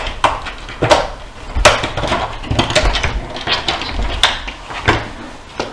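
Pet door flap clattering and knocking against its frame as a cat pushes through it: a run of irregular sharp knocks, about eight or nine.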